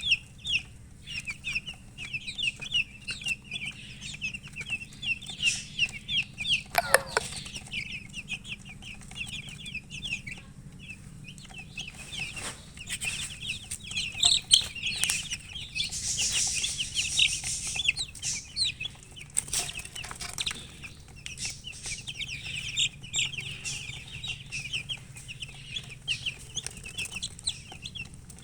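Chickens chirping: a steady stream of short, high chirps, with one longer, lower call about seven seconds in.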